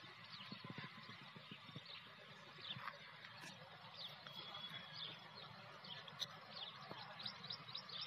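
Faint outdoor ambience: small birds chirping in short, quick calls, more of them near the end, over a low steady background rumble.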